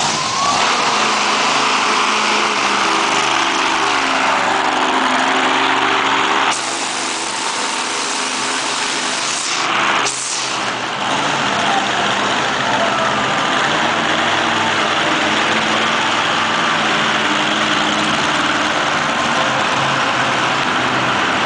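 Monster truck engine running loud and steady, revving up briefly at the start, with the sound dropping off abruptly about six and a half seconds in and again around ten seconds in.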